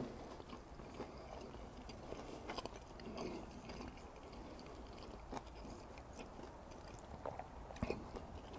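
Faint chewing of a mouthful of bacon cheese meatloaf, with a few soft clicks and mouth sounds scattered through it.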